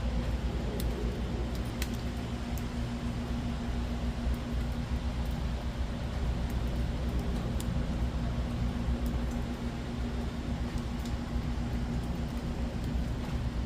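Steady rain falling, with scattered sharp ticks of drops striking, over a constant low hum.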